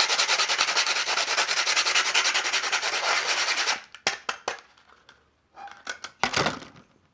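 The broken end of a carbon fishing-pole top-kit section is rubbed fast back and forth on sandpaper stuck to card, a rapid rhythmic scratching that stops about four seconds in. A few light knocks and clicks follow.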